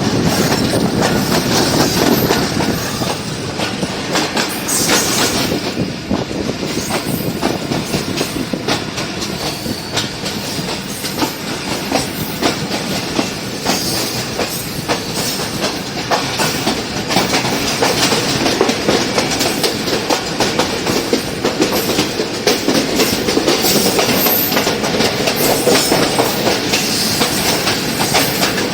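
Passenger train running at speed, its wheels clattering over the rail joints in a continuous rapid clickety-clack, steady throughout.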